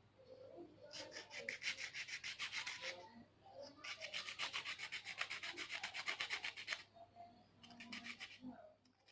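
Sandpaper rubbing back and forth along enamelled copper wire in quick, even strokes, scraping off the enamel insulation to bare the copper for soldering. It goes in three spells, the middle one longest and the last one short, with brief pauses between.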